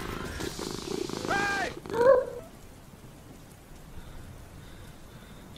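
Domestic cat dubbed in place of the T-rex: a steady hiss of rain, two short cat calls about a second and two seconds in, the second one loud, then a quieter cat purr.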